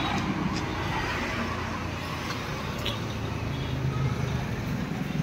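A motor vehicle engine running steadily, a low hum with street noise around it.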